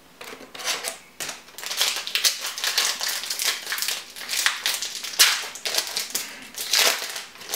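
Foil wrapper of a Yu-Gi-Oh! booster pack crinkling as it is handled and torn open, with irregular crackles throughout, and cards being handled.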